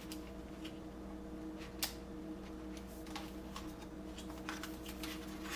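Faint plastic clicks and handling noise as a laptop keyboard's ribbon cable is fitted into its connector, with one sharper click about two seconds in, over a steady electrical hum.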